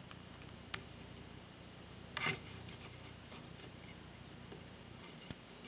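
Plastic parts of a Transformers Beast Hunters Optimus Prime figure being handled and fitted together: a few faint clicks, and one brief louder rustle a little over two seconds in.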